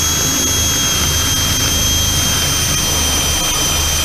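Cordless drill running at steady speed, its 1/4-inch twist bit boring through a plywood platform: a steady high whine over a low hum.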